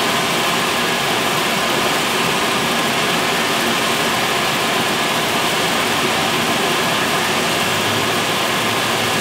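Bideli 2 kg drum coffee roaster running with its burner off: a loud, steady whir from its drum motor and fans as the freshly roasted beans cool in the cooling tray.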